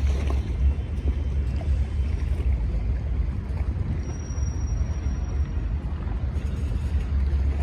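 Steady low rumble under an even waterfront noise, with no call to prayer heard. A faint thin high tone sounds briefly about four seconds in.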